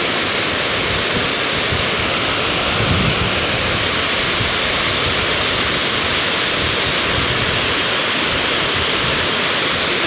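Steady rush of a waterfall, many thin curtains of water pouring over a rock ledge and splashing into a shallow pool, with a slightly heavier splash about three seconds in.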